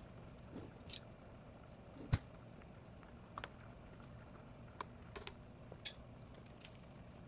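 Thick vegetable soup simmering in pots: sparse, faint pops and ticks from bursting bubbles, with one louder, low plop about two seconds in.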